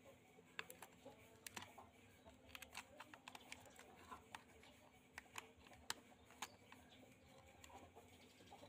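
Faint, irregular clicks and taps of a screwdriver working screws and parts inside the plastic body of an old toy radio-controlled aircraft being taken apart, against near silence.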